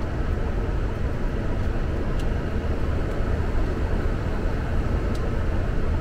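Steady low rumble of airflow and engine noise heard inside the flight deck of a Boeing 747 in flight on approach.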